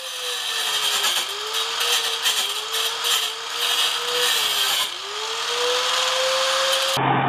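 Electric angle grinder grinding steel. Its motor whine sags in pitch several times as it is pressed into the metal and climbs back when eased off. It cuts off abruptly near the end.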